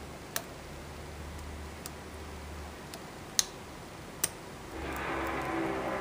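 Sharp, isolated metallic clicks from a hook pick and tension wrench working the pin stack of an ASSA cylinder. There are four clicks, the loudest about three and a half seconds in. Near the end a steady background noise with a faint hum comes up.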